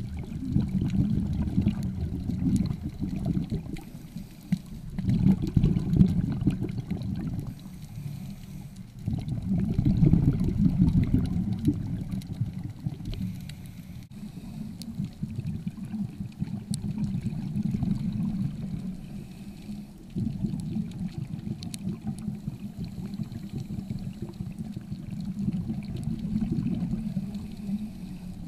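Muffled underwater sound of scuba regulator exhaust bubbles, swelling in bursts every four to six seconds as a diver breathes out. The bursts are loudest in the first twelve seconds and weaker after that.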